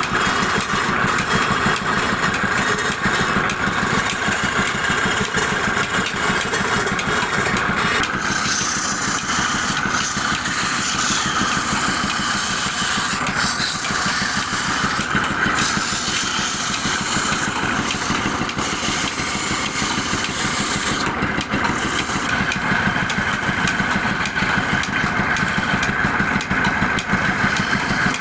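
A motor running steadily and loudly without pause, typical of a woodworking power tool at work.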